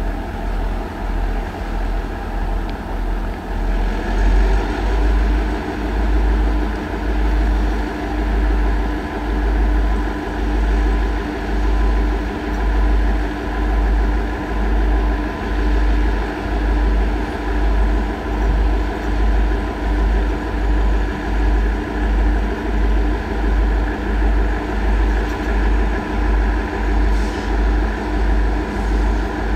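Two EMD G26 two-stroke diesel-electric locomotives working hard together to start a heavy freight train from a stop. The engine sound carries a deep throb that pulses about once a second, and it grows louder about four seconds in as the throttle opens.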